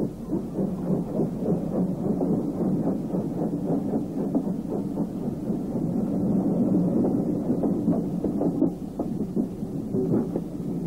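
Steam locomotive working, with rapid, closely spaced exhaust beats over a continuous rumble.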